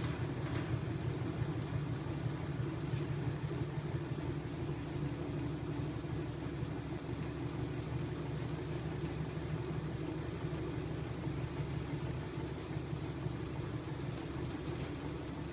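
A small electric motor driving a homemade magnet-coupled crankshaft rig with a chain drive, running at a constant speed with a continuous mechanical hum.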